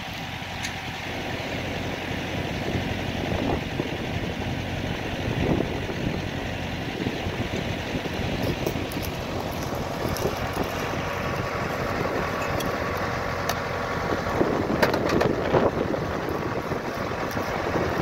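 Tractor engine idling steadily, with a few knocks near the end.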